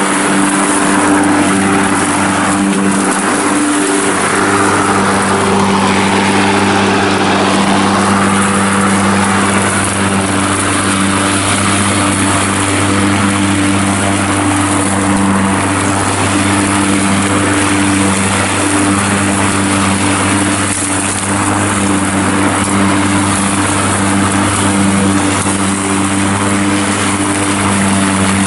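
EGO Power+ 56V cordless push lawn mower running and mowing grass. Its battery-powered motor and spinning blade give a steady, even hum over a whirring rush of air and cut grass.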